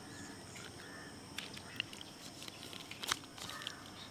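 Rural outdoor background of steady high insect trilling with a few short bird chirps, broken by a few sharp clicks, the loudest about three seconds in.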